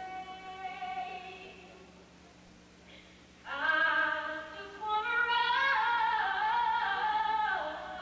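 A woman's high voice singing long held notes. One note fades away over the first couple of seconds, and after a short lull the voice comes back in loudly about three and a half seconds in, then holds a high line until near the end.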